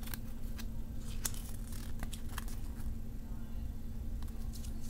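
Stiff cardboard card being handled and turned over in the hand, with scattered light crinkles and ticks over a steady low hum.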